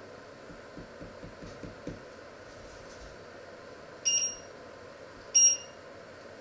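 Two short electronic beeps a little over a second apart from the electric cooker's controls, the sound of settings being pressed on the hob. A few faint soft knocks come before them.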